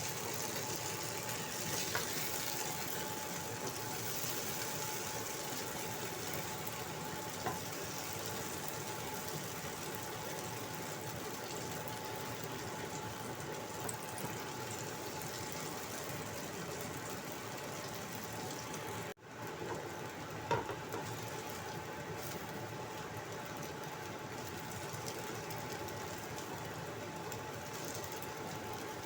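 Potato and carrot fritters frying in hot oil in a wok: a steady sizzling hiss, with a few faint clicks. The sound drops out for a split second about 19 seconds in.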